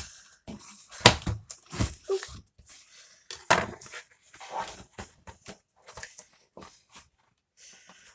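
A mail package being unpacked by hand: rustling and crinkling of packaging, broken by several sharp knocks, the loudest about a second in and again about three and a half seconds in.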